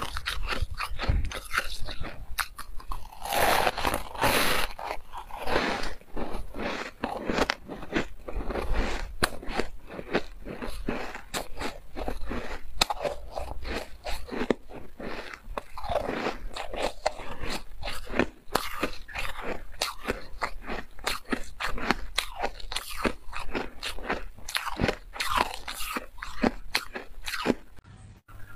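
Refrozen white ice being bitten and chewed up close: dense, crisp crunching and crackling, many sharp cracks a second, with louder bursts of grinding as each mouthful is broken down.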